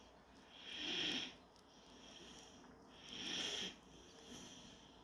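A sleeping German Shorthaired Pointer puppy breathing noisily in its sleep, with an audible hissy breath about every two and a half seconds: two breaths, about a second in and about three and a half seconds in.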